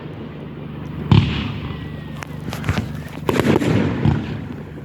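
Fireworks going off: one sharp bang about a second in, then quick runs of crackling pops.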